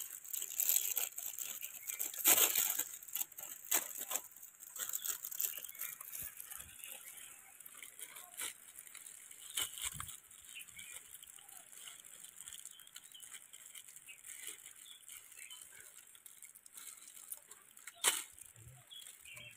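Plastic instant-noodle packets being torn open and crinkled by hand: irregular rustling and crackling with sharp snaps, loudest about two seconds in and again near the end.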